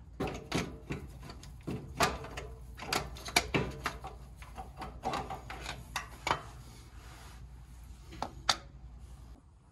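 Irregular metallic clicks and knocks as the ADD actuator is worked loose by hand and slid out of the front differential.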